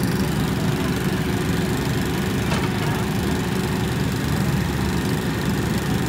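JCB backhoe loader's diesel engine running steadily while the backhoe arm digs.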